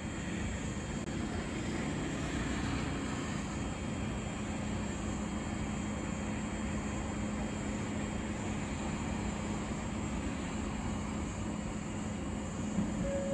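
A train running, a steady rumble with a constant low hum.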